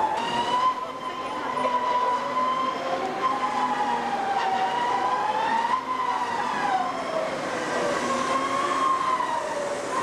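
Riders on a swinging pirate-ship ride screaming together: several long, high voices overlapping without a break, wavering up and down in pitch.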